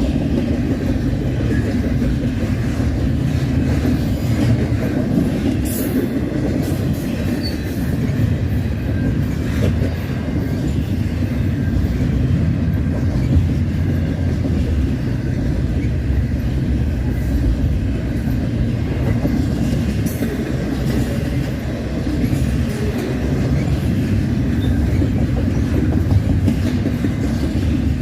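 Freight cars of a double-stack container train rolling steadily past: a continuous loud rumble of steel wheels on rail, with a few scattered clacks.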